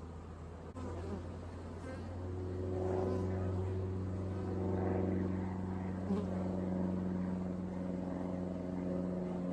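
Swarm of honeybees buzzing around an opened hive, a steady hum that grows louder about two seconds in, with single bees now and then flying close past.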